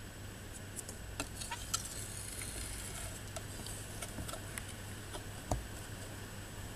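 Light scattered clicks and taps of a metal spoon against a shallow plastic tub of water and food pellets, with one louder knock about five and a half seconds in.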